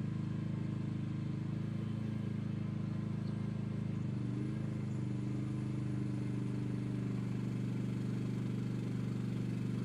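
Mini excavator's diesel engine running steadily. Its note shifts slightly about four seconds in, then settles.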